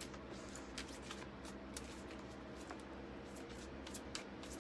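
A deck of oracle cards being shuffled by hand: a faint run of soft, irregular card clicks and flicks.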